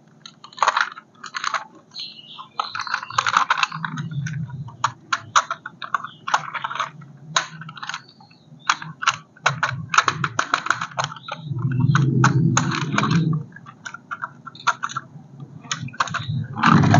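Plastic packaging and hard plastic parts being handled: irregular crinkling, clicking and rattling. About twelve seconds in, a low hum runs for about a second and a half.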